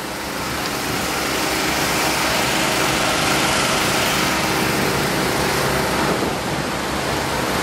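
Truck engine running steadily, with a continuous hiss over it.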